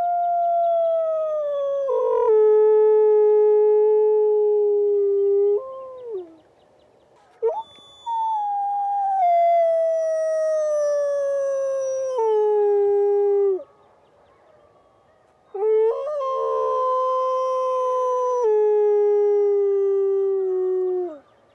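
A gray wolf howling: three long howls of several seconds each, every one holding a pitch and then dropping in steps before trailing off, with short pauses between them.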